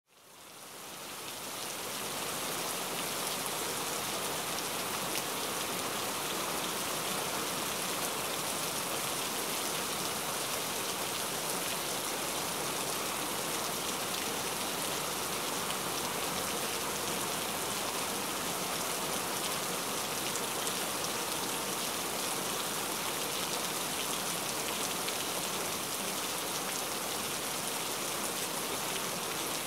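Steady rain-like hiss, an even wash of noise with no other sound in it, fading in over the first two seconds.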